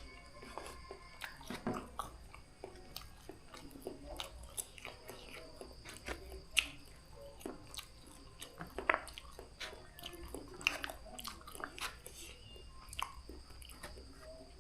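A person eating noodles close to the microphone: irregular wet chewing and mouth sounds with frequent short clicks and smacks.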